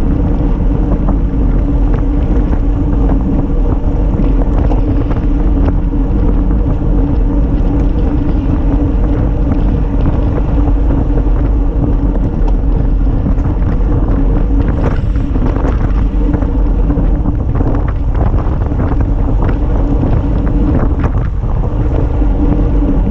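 Wind rushing over the microphone of a handlebar-mounted camera on a road bike at riding speed, with a steady hum of tyres on asphalt. A few knocks and rattles come through in the second half.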